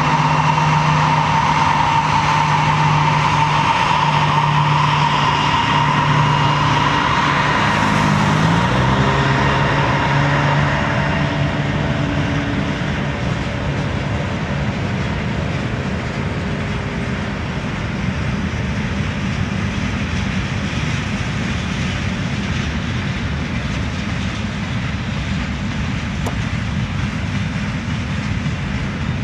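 CSX freight train passing: the diesel locomotives' engine drone and whine fall in pitch about eight to ten seconds in as they go by, then the steady rumble and rattle of freight cars rolling past.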